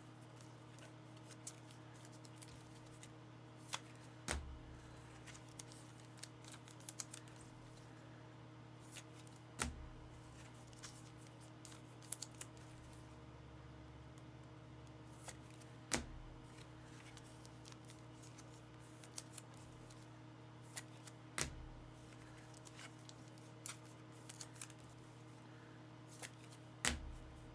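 Faint, scattered clicks and taps of trading cards and their holders being handled and set down on a table, over a steady low electrical hum.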